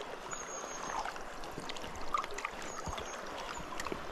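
River water running steadily, with scattered small clicks and two brief, faint, high thin tones.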